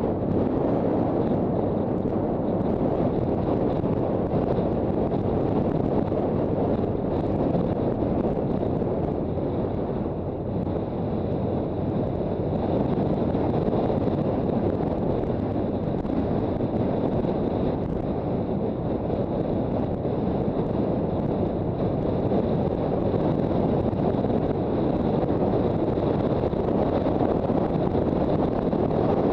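Steady wind rush on the microphone of a Honda CB400 Super Bol d'Or motorcycle being ridden at speed, with the bike's engine and road noise blended underneath.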